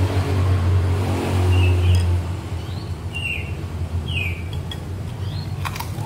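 A motor vehicle's engine rumbling close by, fading away about two seconds in, while a small bird gives several short, high, falling chirps. A few sharp clicks come near the end.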